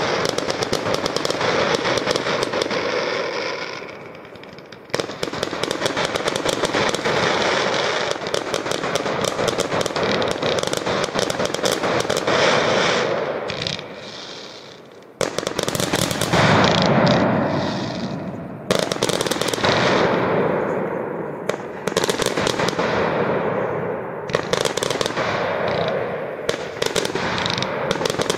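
Aerial fireworks going off in quick succession: a near-continuous run of bangs and crackling. It dies away twice, about four seconds in and again about fourteen seconds in, and each time starts again abruptly with a fresh burst.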